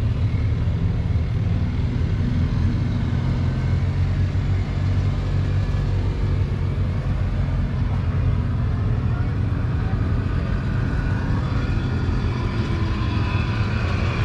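Tractor engine idling steadily, a low even rumble, with faint voices in the background near the end.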